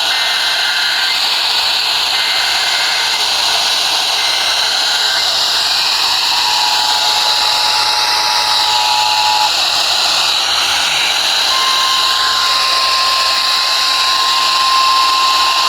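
Steady radio static hiss from a receiver between transmissions. Faint thin whistles come and go over it, and one holds on from a little before two-thirds of the way in.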